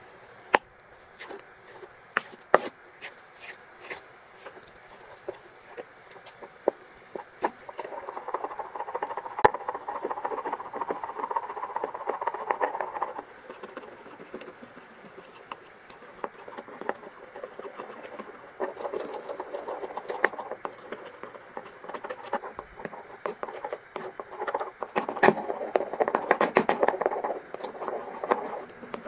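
Kitchen prep at a mixing bowl: a utensil tapping and clicking against a ceramic bowl, with two longer stretches of stirring or scraping noise, one midway and one near the end.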